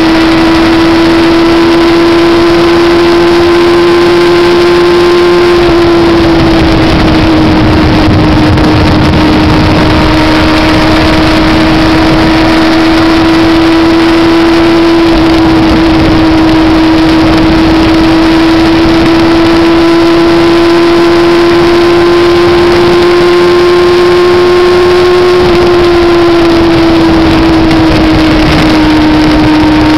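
MV Agusta sport motorcycle engine holding high, steady revs at highway speed, heard from the rider's seat under heavy wind rush. The engine note creeps slowly higher, then eases down about six seconds in and again near the end as the throttle comes off a little.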